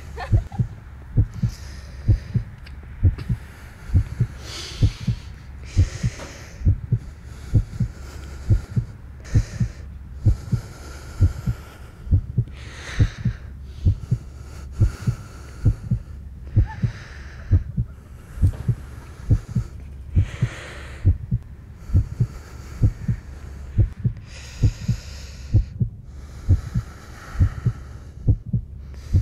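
Heartbeat sound effect: steady, regular low thumps, with heavy breathing swelling and fading every second or two over them.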